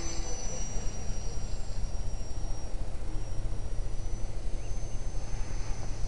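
Thin, high-pitched whine of the small Cox glow engine of a model airplane in flight, dropping slightly in pitch early on and rising again about four seconds in as the plane moves. Heavy wind rumble on the microphone is underneath throughout.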